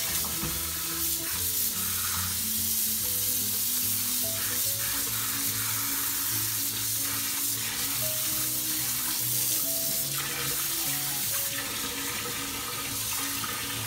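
Kitchen tap running steadily into a sink as cooked rice noodles are rinsed with cold water in a plastic colander, with background music underneath.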